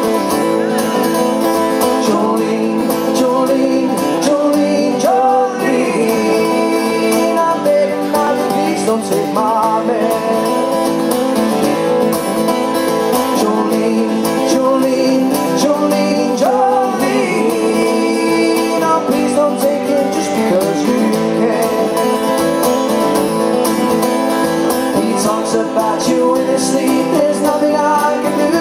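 Live acoustic music: two acoustic guitars strummed steadily under a man's singing voice.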